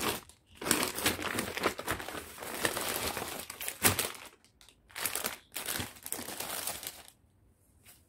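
Brown kraft-paper Flipkart courier envelope crinkling as it is handled, in several bursts with short pauses between them. The loudest moment is a sharp crackle about four seconds in, and the crinkling stops about a second before the end.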